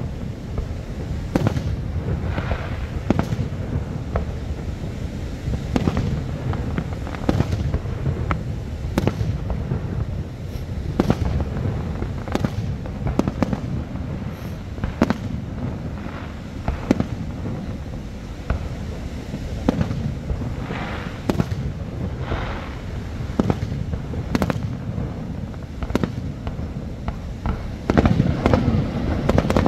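Aerial firework shells bursting in an irregular series of sharp bangs, about one a second, some followed by a brief crackle, over a steady low rumble.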